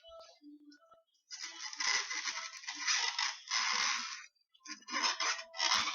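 Rustling, crinkling handling noise in a few bursts, like a cap or packaging being handled, with a few small clicks.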